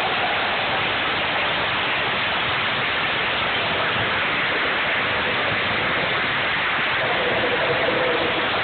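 Football stadium crowd's steady roar, flattened by a phone microphone into a dense wash of noise; a few voices hold a note near the end.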